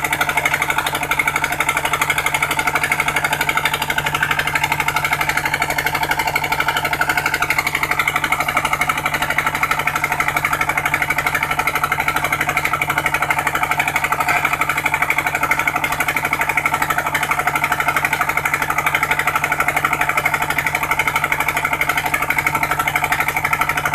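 Engine of a sand suction pump machine running steadily under load, with a rapid, even pulsing beat.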